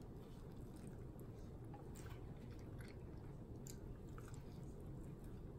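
Faint chewing and biting on a sauced hot chicken wing, with short wet mouth clicks scattered throughout.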